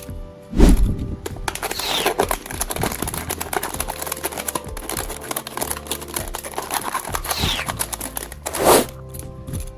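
Background music over dense crinkling and scraping handling noises, with a heavy thump about half a second in.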